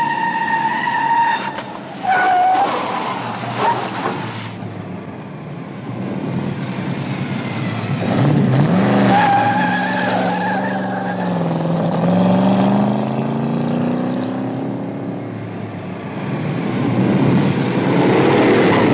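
Car-chase soundtrack: a sedan's engine revs up and down while its tyres squeal and skid, with a few sharp knocks about two to four seconds in. Near the end, motorcycle engines come in, rising.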